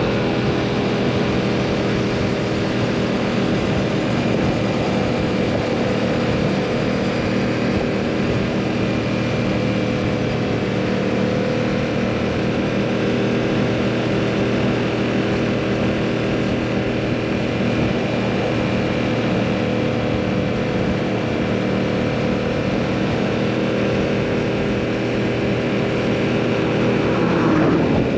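2022 Yamaha MT-07's parallel-twin engine running under way at a steady, nearly constant engine speed. Near the end its pitch and loudness swell briefly, then drop.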